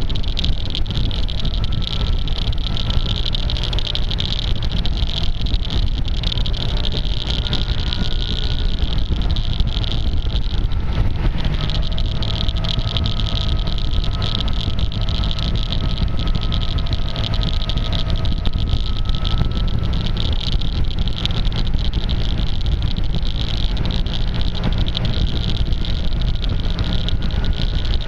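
Steady wind and road rumble from a maxi-scooter riding at speed, picked up by a microphone covered with tape, which muffles it and adds a constant strange clicking.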